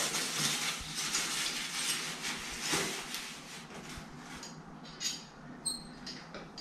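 Packaging rustling as a chrome toilet roll holder is unwrapped from its white wrap and plastic bag, followed by a couple of light metallic clinks as its parts are handled, about five seconds in.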